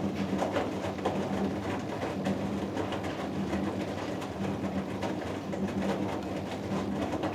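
Hoover Dynamic Next DXA610IW3 washing machine running a cotton wash: a steady motor hum with irregular soft knocks and swishes of laundry turning in the drum.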